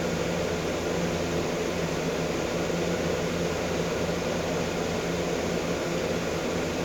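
Steady background hum and hiss from a fan-like machine running, with a low hum under an even hiss and no change throughout.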